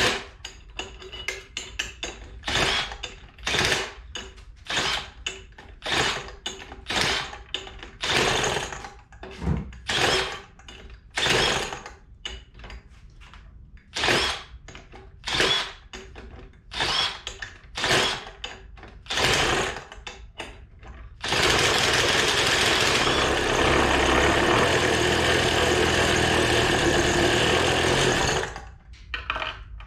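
Small two-stroke leaf blower engine, running on nitromethane RC car fuel, pull-started again and again with its recoil cord: about twenty short zips roughly a second apart. About 21 seconds in it catches and runs steadily at very high revs for some seven seconds, then cuts out suddenly; the owner judges it too rich.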